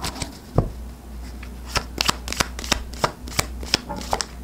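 A deck of oracle cards being shuffled by hand: sharp snaps and slaps of cards, a few at first, then a regular run of about three a second from about two seconds in.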